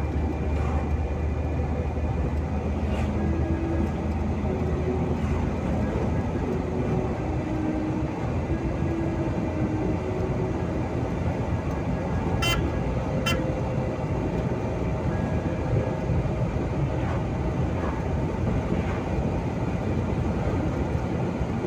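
Steady road and engine rumble heard from inside a moving vehicle's cabin at highway speed, with two sharp clicks a little under a second apart about halfway through.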